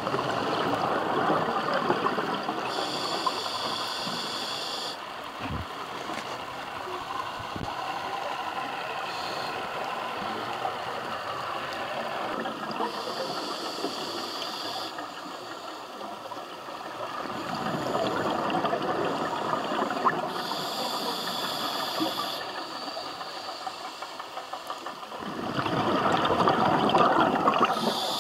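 Scuba diver breathing through a regulator: a high hiss of air on each inhale, then a bubbling rush on each exhale, the breaths several seconds apart.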